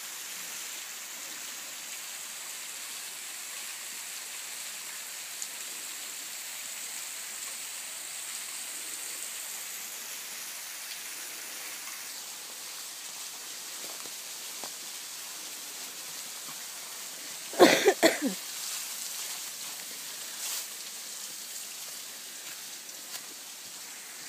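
Steady hiss of falling, splashing water at a sandstone rock shelter. A short, loud burst of noise comes about three quarters of the way through.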